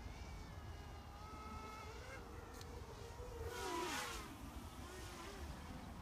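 Racing quadcopter's four brushless motors (Emax RS2205 2300kv) and propellers whining in flight, the buzzing tones gliding up and down in pitch with throttle and swelling loudest about four seconds in as it comes closer.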